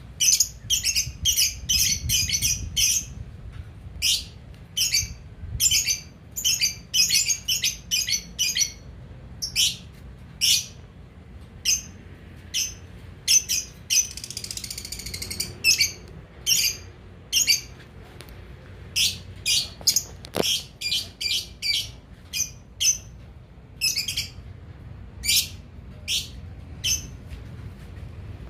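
Lovebird calling: many short, high-pitched chirps in quick clusters, with a longer chattering stretch about halfway through.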